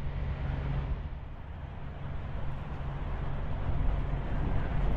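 Diesel truck engine idling: a steady low rumble that grows a little louder near the end.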